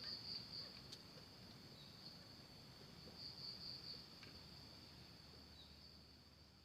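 Faint, steady, high-pitched insect trill, like crickets chirping, continuing unbroken with slight swells.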